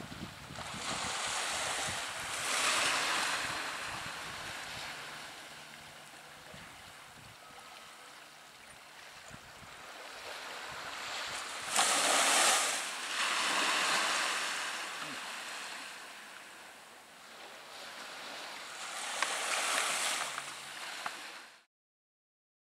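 Small waves washing on the shore, swelling and fading three times, with some wind on the microphone; the sound cuts off abruptly near the end.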